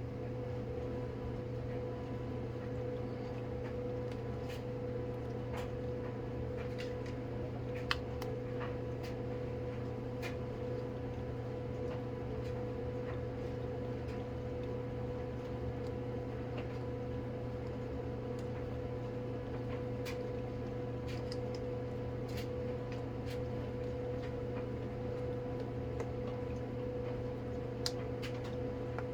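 Steady mechanical room hum with a few fixed tones. Scattered light clicks and taps run over it, the clearest about 8 seconds in and again near the end.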